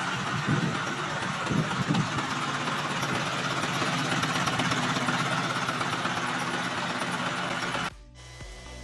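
Isuzu 4HF1 four-cylinder diesel engine running at idle, with a few heavier low pulses in the first couple of seconds. The sound cuts off suddenly near the end, and quieter music follows.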